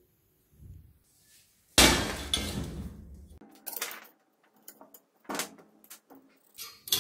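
Metal pieces knocked and set down on a workbench: one heavy thump about two seconds in with a short low ring after it, then several lighter knocks and clicks as aluminium stock and a steel ruler are handled.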